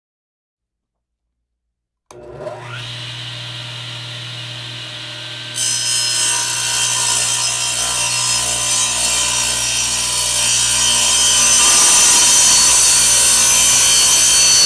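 Electric power saw starting about two seconds in, its motor spinning up with a brief rising whine into a steady hum. From about five and a half seconds in the blade cuts into wood, and the sound grows louder and brighter.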